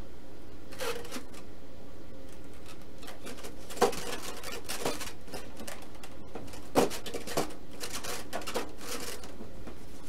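Scattered light taps and scrapes of hands and a small brush working on a balsa model-airplane fuselage as epoxy is brushed into its tail stabilizer slot, with two sharper knocks about four and seven seconds in, over a faint steady hum.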